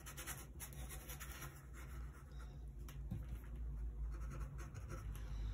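Faint, irregular dry scratching of a flat bristle brush scrubbing oil paint onto a slightly rough gessoed panel and working paint on the palette.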